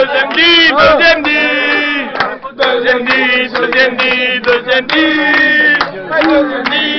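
A group of men chanting loudly together in sung phrases, holding notes and breaking off between lines, as in a football celebration chant.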